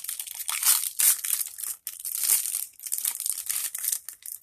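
Plastic food packaging crinkling and crackling as it is handled and pulled open, in a dense run of quick crackles with a couple of louder bursts in the first second or so.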